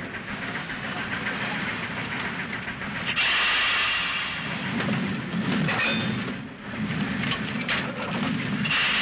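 Steam locomotive rolling on the rails with a steady rumble. About three seconds in, a loud hiss of steam starts and carries on, broken briefly once.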